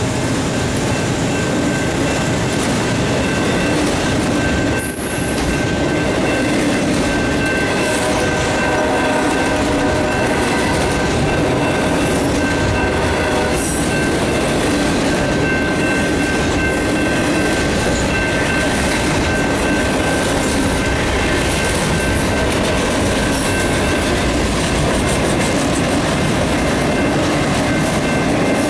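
Freight train of autorack cars rolling past close by: a steady rumble and clatter of steel wheels on the rails, with a thin steady high squeal running through it.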